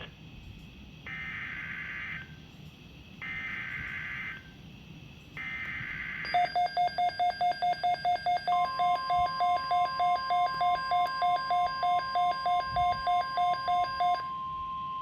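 NOAA Weather Radio alert header (SAME data): three buzzy one-second data bursts, each followed by a second of quiet. About six seconds in, a weather-alert receiver starts a loud pulsing beep, about three beeps a second, and about two seconds later the steady 1050 Hz weather-radio alarm tone begins and holds under it. Together they mark the start of a new alert, here a severe thunderstorm watch.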